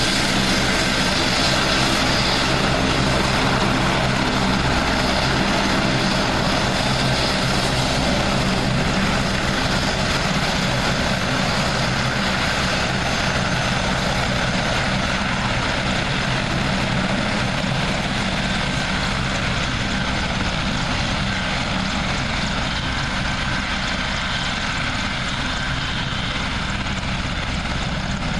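AgustaWestland HH-101 Caesar helicopter's three turbine engines and five-bladed main rotor running steadily as it taxis on the ground, the sound slowly fading as it moves away.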